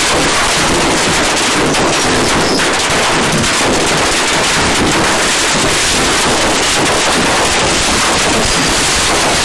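Fireworks going off in a dense, unbroken crackle of rapid bangs, loud throughout.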